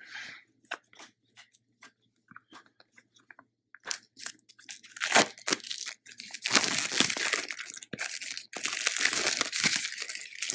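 Plastic shrink wrap being torn and peeled off a product box: scattered light crackles at first, then from about four seconds in a long run of loud crinkling and tearing.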